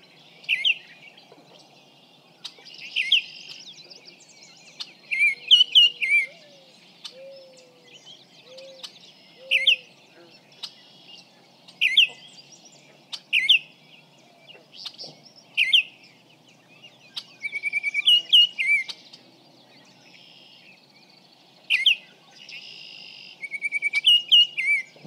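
Baltimore oriole calling: short, sharp falling notes every second or two, and twice a fast chattering rattle, picked up clearly through a small parabolic microphone.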